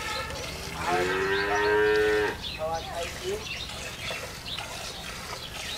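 A cow gives one long moo about a second in, lasting about a second and a half, falling slightly in pitch. Around it come quick, repeated squirts of milk from hand milking hitting a pail.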